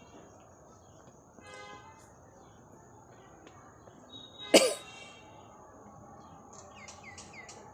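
A person lets out one short, loud explosive burst of breath about halfway through, like a cough or sneeze. Faint bird chirps can be heard in the background, more of them near the end.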